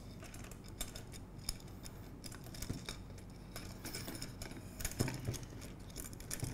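Light metallic clicks and scrapes of aluminium brackets and a length of aluminium extrusion being handled and slid into place against the channel, with a sharper knock about five seconds in.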